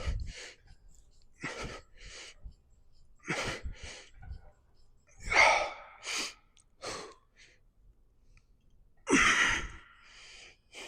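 A man breathing hard through a set of pull-ups: short, forceful exhales and quick inhales in pairs, about every two seconds, with the loudest breaths about halfway through and near the end.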